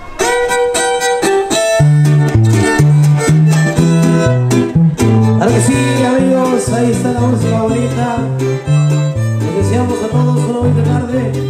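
Son huasteco trio playing an instrumental introduction, coming in right at the start: violin carrying the melody over strummed jarana huasteca chords and the huapanguera's bass line stepping between a few low notes.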